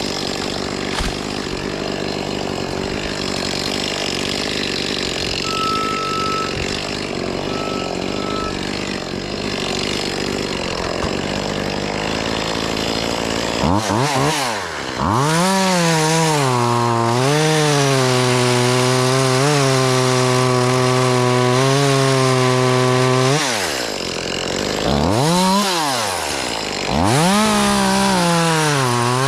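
Chainsaw running: a steady noisy machine sound for the first half, then the saw revs up to full throttle about halfway through, holds there with small dips, drops back, and revs up again twice near the end.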